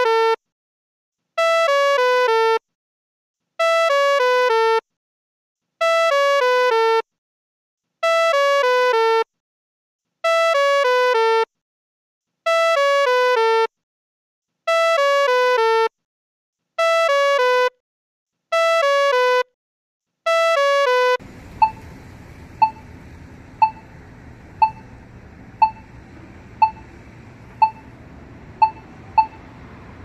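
Canadian crosswalk accessible pedestrian signal: a short electronic call of stepped, falling notes repeats about every two seconds. About two-thirds of the way through it changes to the slow locator tick, about once a second over a low hiss.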